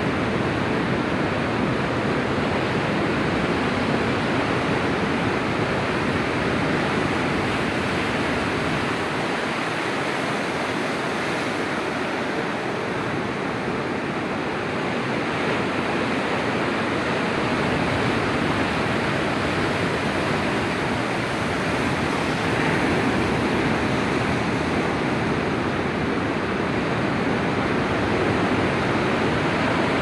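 Surf washing onto a sandy beach: a steady rush of waves that swells and eases gently.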